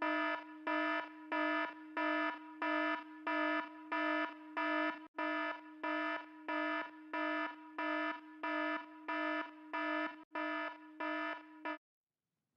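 Alarm beeping at a steady single pitch, about two short buzzy beeps a second. It stops abruptly near the end, as it is switched off.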